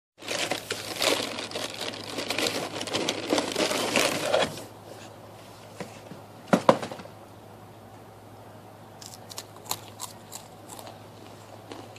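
Crinkling and crunching of Chicken in a Biskit crackers, played in reverse, for about four and a half seconds. Then two sharp clicks and a few faint ticks.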